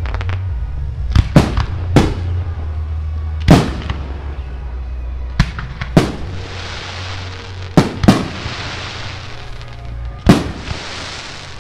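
Aerial firework shells bursting overhead: about ten sharp bangs at irregular intervals, with a crackling hiss trailing some of the later bursts.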